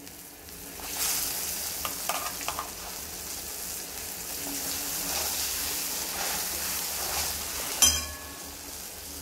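Hot ghee with roasted wheat flour sizzling in a kadai as ground moong dal paste is added and pushed around with a slotted steel ladle. The sizzle swells about a second in and holds, with a few light scrapes and a sharp knock of the ladle against the pan near the end.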